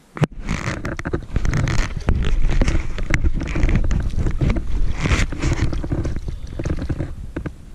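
Water sloshing and splashing, with wind buffeting the microphone.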